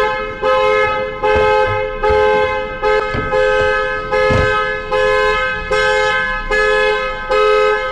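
Car horn honking over and over in an even rhythm, about ten short two-note blasts a little under a second apart: the car's anti-theft alarm set off by the lockout attempt.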